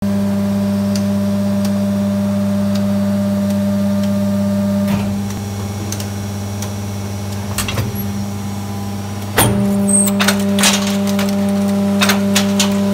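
PET preform injection moulding machine running with a steady low hum. About five seconds in the hum drops; it comes back about nine seconds in with a loud clack, followed by a series of sharp clicks and clinks as the mould opens on a fresh shot of preforms.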